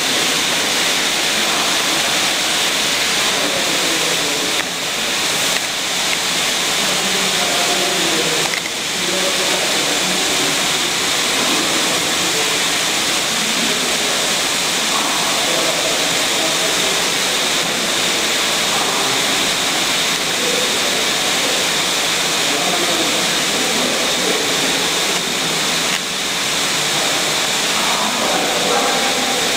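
Coal-mine steam winding engine running: a loud, steady noise with no clear beat.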